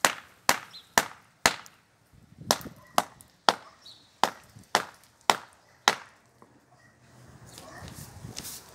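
A hand hammer striking the base of a concrete post: sharp blows about two a second, eleven in all, with a short pause about two seconds in, stopping about six seconds in. The concrete is cracked and crumbling under the blows. Faint shuffling follows near the end.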